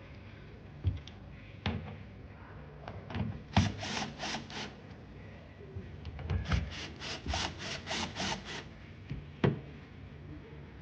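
Assembly work on a wooden bed frame: a few sharp knocks, then two runs of short, evenly spaced scraping strokes, about three a second, the second run longer than the first.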